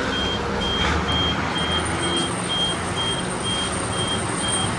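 Truck's reversing alarm beeping, about two short high beeps a second, over the steady low running of the engine.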